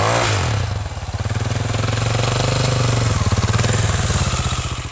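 Motorcycle engine running under throttle. Its pitch drops at first, then it pulls again from about a second in and holds a steady, loud drone.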